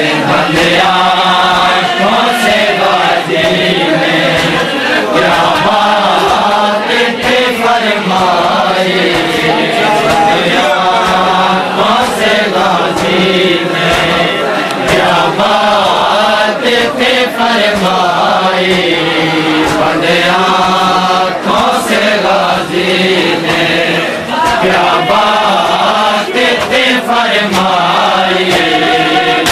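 A group of men chanting a noha (Muharram lament) together, loud and continuous, the melody rising and falling in repeated phrases. Sharp knocks break through now and then.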